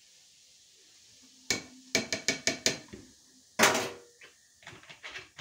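Kitchen handling noise of measuring baking soda and handling a vinegar bottle: a click, then a quick run of about five sharp clinks and taps of a small utensil against containers, one louder short clatter a little past halfway, and a few lighter knocks near the end.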